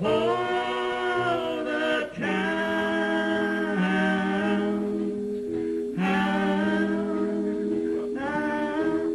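A man singing long held notes into a microphone over sustained keyboard chords.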